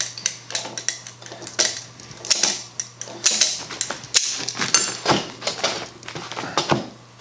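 Locking pliers working a broken threaded bolt out of an antique Singer treadle's cast iron base: an irregular run of metallic clinks and short scraping rasps.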